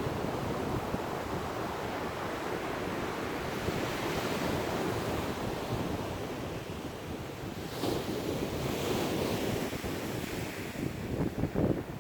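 Ocean surf breaking and washing ashore in a steady rush that swells and eases, with wind buffeting the microphone, gustier near the end.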